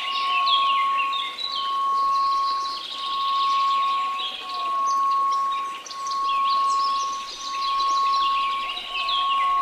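A steady pure tone at 1098 Hz with a light hiss of white noise, mixed over many small birds chirping. The overall loudness swells and dips slowly, about once every second and a half.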